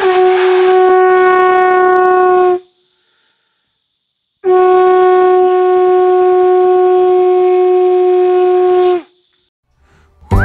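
A horn sounded in two long, steady blasts: the first about two and a half seconds long, dropping in pitch as it starts, and the second about four and a half seconds long after a short pause.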